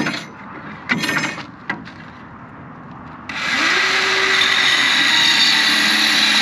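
Two short knocks as the wood and tool are handled. About three seconds in, a reciprocating saw starts up and runs steadily, cutting through a wooden board; its motor hum rises as it spins up, then dips slightly as the blade bites.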